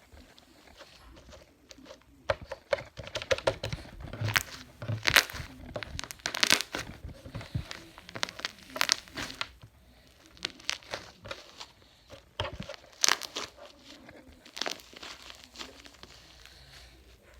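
Slime being squeezed and stretched by hand, its trapped air bubbles popping and crackling in quick irregular clusters.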